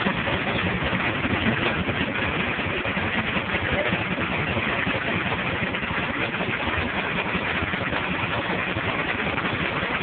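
Case steam traction engine running a belt-driven sawmill: a steady, dense mechanical noise that holds even throughout.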